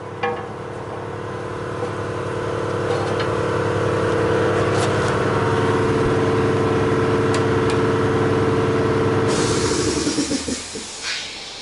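A motor running steadily and growing louder over the first few seconds, then winding down and stopping about nine and a half seconds in as a hiss starts.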